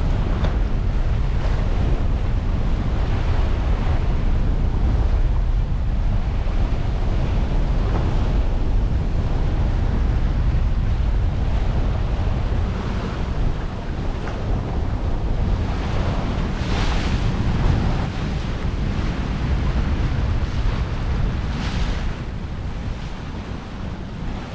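Wind buffeting the microphone and water rushing along the hull of a Westsail 32 sailboat sailing hard to windward in a fresh breeze, with a deep steady rumble. Two louder surges of splashing water, one about two-thirds through and one near the end.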